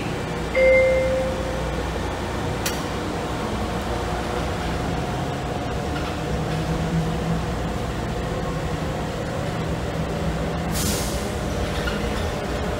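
Rubber-tyred automated people mover running along its concrete guideway, heard from inside the car: a steady rolling rumble with a constant electric motor hum. A short, loud tone sounds about half a second in, and a brief hiss of air comes near the end.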